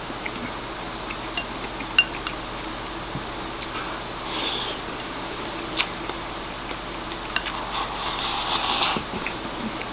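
Chopsticks clicking against a ceramic rice bowl, with two stretches of slurping and shoveling as food is scooped from the bowl's rim into the mouth: a short one about four seconds in, and a longer one from about seven and a half to nine seconds.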